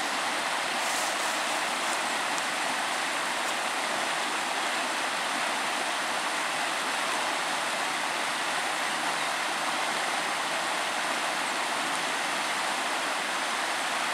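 Shallow river rapids rushing over rocks and gravel: a steady, even rush of water.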